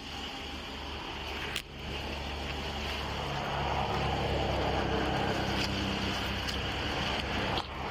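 Steady vehicle noise of an idling car engine: a low hum with an even hiss over it. It cuts out briefly about a second and a half in, then grows louder for a few seconds in the middle.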